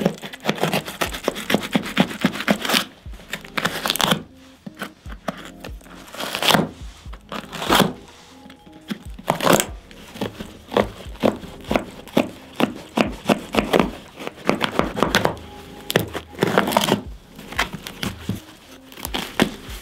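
A small blade cutting through a Vans snowboard boot's leather upper and padded lining in many quick, short scratching strokes, with background music underneath.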